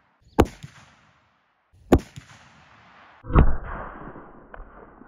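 Three rifle shots from a .45-70 Government Marlin 1895 Trapper lever-action, roughly a second and a half apart. The first two are sharp cracks with short tails. The third, about three seconds in, is a heavier boom with a long rolling echo.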